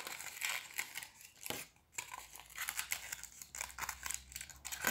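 Aluminium foil being crumpled and shaped by hand: irregular crinkling and rustling, with a short break about two seconds in.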